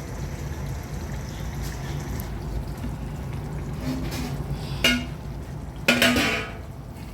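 Cooking pot and its lid knocking and clinking as the pot is covered: a light knock near the end, then a louder clank with a short ring, over a steady low hum.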